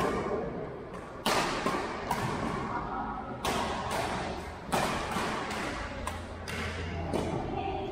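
Badminton rackets striking a shuttlecock during a doubles rally: several sharp cracks about a second apart, each echoing in a large gym hall.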